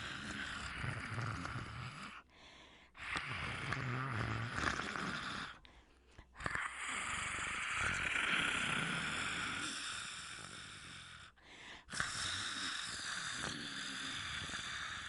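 A person imitating a monster with the voice: long, raspy, breathy growls and hisses, four drawn-out ones broken by short pauses for breath.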